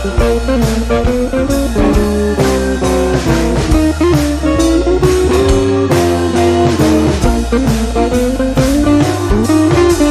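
Background music: a blues-rock track led by electric guitar, with bass and a drum kit keeping a steady beat.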